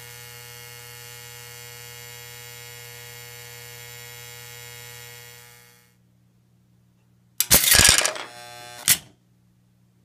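A steady electrical hum that fades out about six seconds in. After a short quiet, a Lionel 3461 operating log dump car tips, and its wooden logs tumble and clatter into the black unloading bin, with a last sharp clack about a second later.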